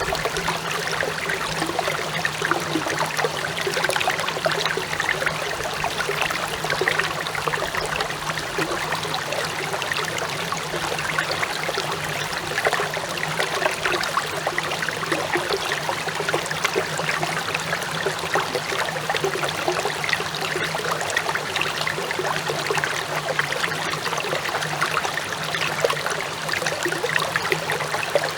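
Clear stream babbling: a steady wash of flowing, trickling water with many small splashes. A steady low hum runs underneath.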